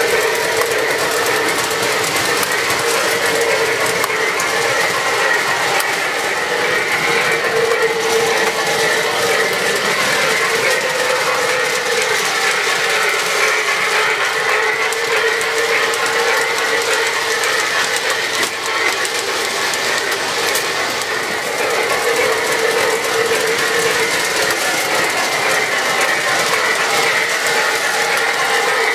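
O-gauge brass model steam locomotive and passenger cars running at speed on a model railway layout: a steady, continuous clatter and rumble of the wheels on the track.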